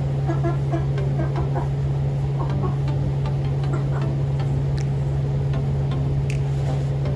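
A steady low mechanical hum, unchanging in pitch and level, with scattered light clicks and knocks over it.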